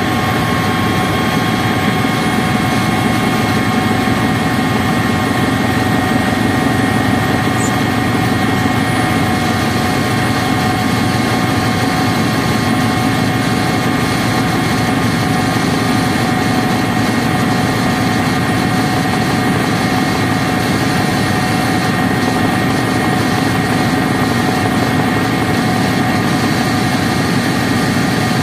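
Helicopter in flight heard from inside the cabin: a loud, steady engine and rotor noise with a constant whine running through it.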